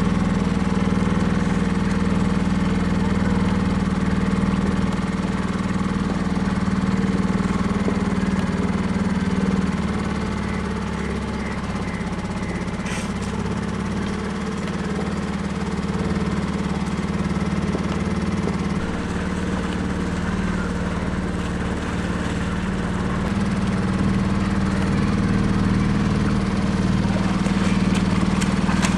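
Small canal boat's engine running steadily with a low, even hum. Water splashes near the end.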